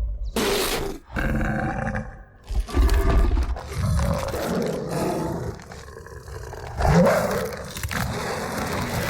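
A film soundtrack's werewolf roars and growls, in several loud bursts with brief breaks between them; the loudest roar comes about seven seconds in.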